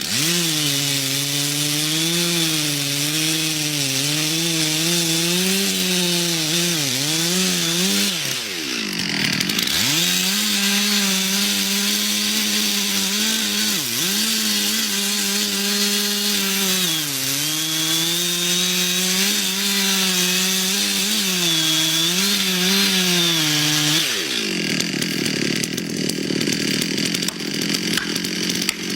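Chainsaw cutting wood: its two-stroke engine runs at high speed, with the pitch wavering and dipping sharply several times as the chain bogs down in the cut. For the last few seconds the steady engine tone gives way to a rougher, noisier sound.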